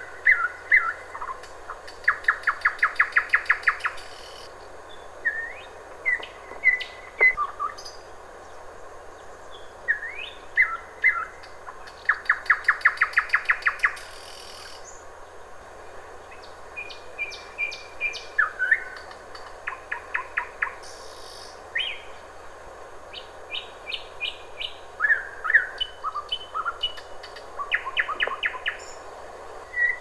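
Nightingale singing: phrases of rapid repeated notes, about ten a second, alternating with whistled and chattering notes, with short pauses between phrases.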